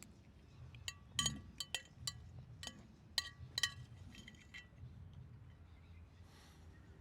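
Cutlery clinking against a dish while eating, about ten sharp ringing clinks in the first four and a half seconds.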